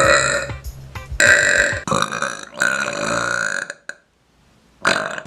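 A woman burping: a string of long, deep belches one after another, then a pause of about a second, then another long burp starting near the end.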